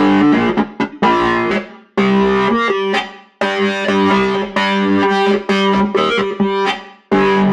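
Cherry Audio Sines software synthesizer playing a keyboard preset in short chordal phrases. Each note is struck sharply and dies away, and the playing pauses briefly about two seconds in, about three and a half seconds in, and just before the end.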